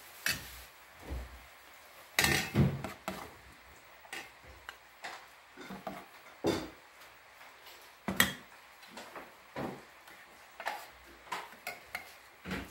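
Serving spoons clinking and scraping against aluminium pots and a plate as food is dished up, in scattered knocks, the loudest about two seconds in and about eight seconds in.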